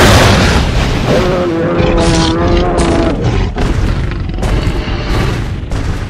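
A loud, heavily distorted sound effect with a dense rumble throughout. A pitched cry holds steady from about one to three seconds in, and after that the sound cuts in and out abruptly several times.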